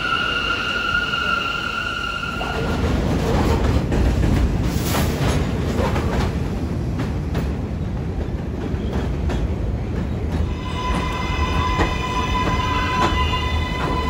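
New York City subway trains pulling into stations, the rumble of cars on the rails. Early on a steady high whine sounds over the rumble, then gives way to clattering wheels with many sharp clicks. From about ten seconds in a steady whine of several tones rises over the rumble.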